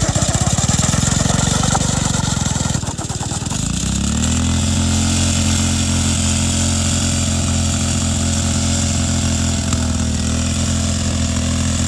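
Honda 160 single-cylinder four-stroke pressure-washer engine running hard, with rapid firing pulses at first, then settling into a steady, even pitch about four seconds in.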